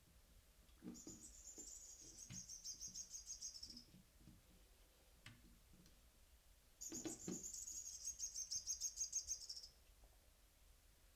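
Electronic chirping from a bird-in-a-cage cat toy: two bursts of rapid, high chirps, each about three seconds long. Soft knocks of the toy being batted about come in between.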